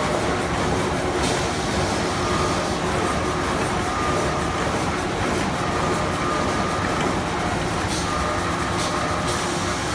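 Automatic band-saw toilet-paper log cutting machine running: a loud, continuous mechanical noise, with a short higher whine that comes and goes every second or two.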